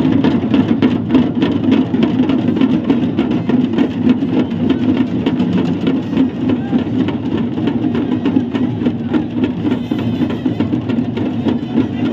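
Music with fast, steady drumming.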